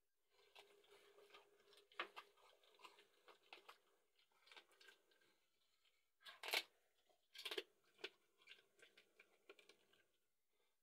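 A dog gnawing and chewing on something held between its front paws: scattered crunching and tearing sounds, with two louder crunches about six and a half and seven and a half seconds in.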